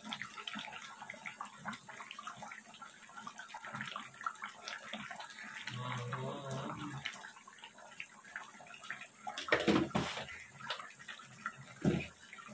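Pot of chicken curry boiling, a steady bubbling and crackling, with two louder knocks near the end.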